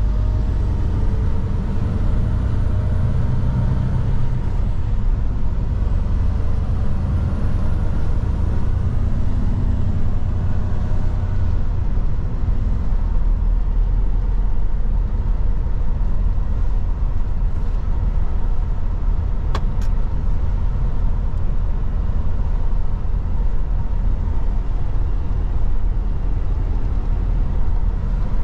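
Mercedes-Benz Actros truck driving, its diesel engine and road noise a steady rumble inside the cab. The engine note rises and falls for the first dozen seconds, then holds steady, with a single sharp click about two-thirds of the way through.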